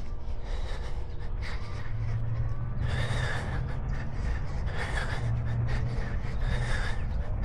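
A runner's heavy, gasping breaths, one about every one and a half to two seconds, from the hard effort of 600 m intervals at about 3:29 per km.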